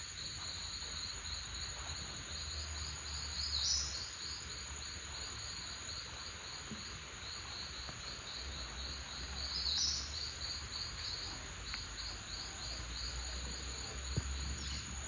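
Insects chirping: a steady high-pitched whine with a rapid pulsed chirping beneath it, about three chirps a second. A louder call rises above the chorus twice.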